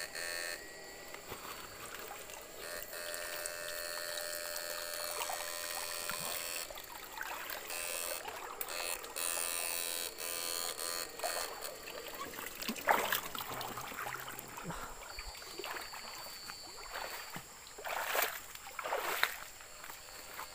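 Wading and splashing through a shallow stream, with a steady buzzing tone under it in the first half and a run of sharper splashes later, the loudest about two thirds of the way in.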